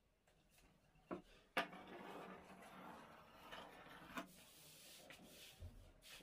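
Thin wooden rolling pin rolling out baklava dough sheets on a wooden board: a steady rubbing, with a few light knocks.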